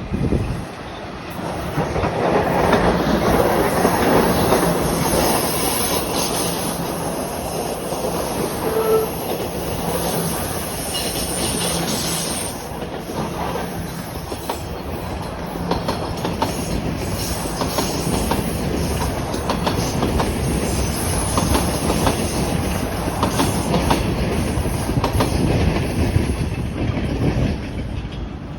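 TTC Toronto Rocket subway train running past on the rails, its wheels squealing with a steady high-pitched screech and clicking over rail joints, the clicks clearest in the second half.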